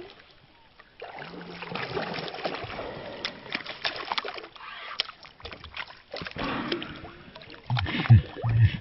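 A hooked pike thrashing at the surface beside an inflatable packraft: irregular splashing and sloshing of water, broken by sharp clicks.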